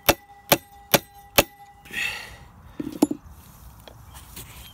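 Hammer blows on a cold chisel driven into the seam of a Flint & Walling pump casing to split the rusted-together sections: four sharp, ringing metal strikes about two a second, then a scrape and a dull knock.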